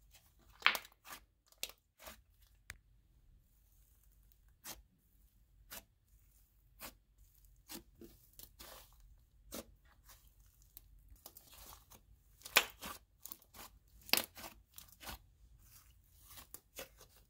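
Pink clay slime being stretched, folded and pressed by hand. It gives off scattered small pops and crackles with sharp snaps now and then, the loudest near the start and about three-quarters through: a 'sizzly' slime.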